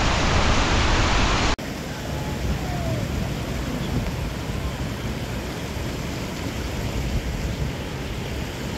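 Muddy floodwater pouring over a washed-out road edge, a loud steady rush that cuts off abruptly about a second and a half in. After that comes a quieter steady wash of wind and distant running water.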